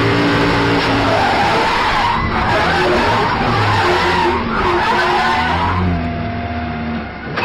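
Onboard sound of an Audi R8 GT3 race car spinning out at speed: its V10 engine note under tyres squealing and skidding, the skid noise strongest in the middle of the spin and dying away near the end.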